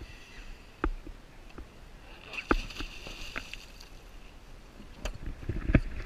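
Scattered knocks and bumps of divers and scuba gear moving about on an inflatable boat, over a low rumble, with a brief hiss of about a second starting a little after two seconds in.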